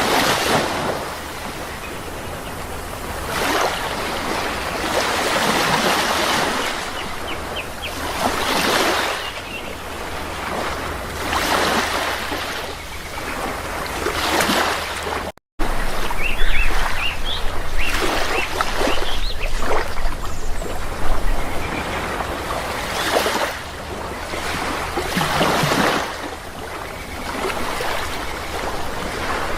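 Sea waves washing in, swelling and ebbing every few seconds, with faint short bird calls over them in the second half. The sound cuts out for a split second about halfway through.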